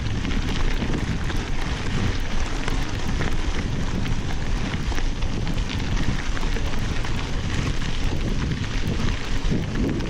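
Mountain bike riding over a gravel road: wind rushing over the microphone and knobby tyres rolling on loose gravel, with a scatter of small ticks from grit under the tyres.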